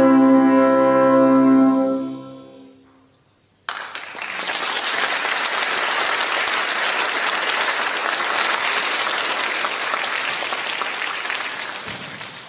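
Elementary-school wind band holding its final chord, brass prominent, which dies away about two and a half seconds in. After a moment of silence the audience starts applauding, steady and then fading near the end.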